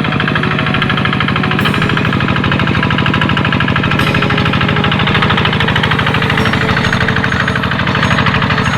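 Tractor engine running steadily while plowing a rice paddy, with a rapid, even knocking beat.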